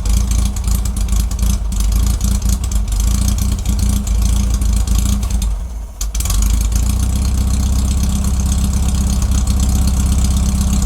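1969 Karmann Ghia's air-cooled flat-four engine running unevenly, dipping briefly about five and a half seconds in, then picking up and running steadily, on a car that has been struggling to start.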